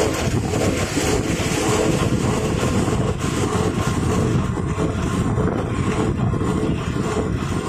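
A packing machine that wraps single rolls of adhesive tape in PP film, running with a steady low rumble.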